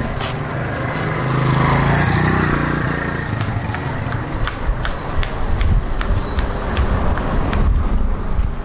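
A motor vehicle passes, its engine rising and fading over the first few seconds, then footsteps tap on pavement at about two a second.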